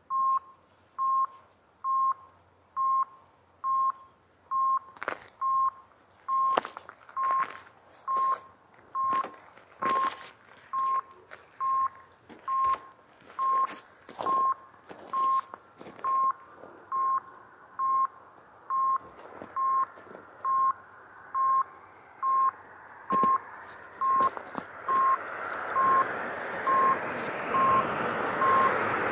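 Swiss level crossing's electronic warning signal beeping, one short steady beep about once a second, warning of an approaching train as the barriers close. Over the last several seconds the approaching Matterhorn-Gotthard-Bahn train grows steadily louder under the beeps.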